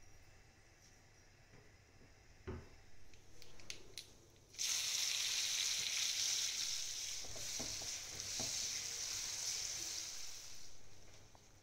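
Chopped onions sizzling loudly in hot oil in a kadai. The sizzle starts suddenly a little before halfway and fades near the end, with a spatula stirring through it. Before that, a few light knocks.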